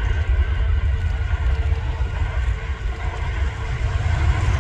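Boeing 737 MAX jet engines during touchdown and rollout: a steady roar with a strong low rumble underneath and a faint whine.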